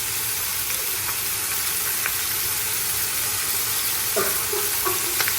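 Beef pieces sizzling in oil and garlic paste in a pressure cooker pot, with a few light clicks of stirring.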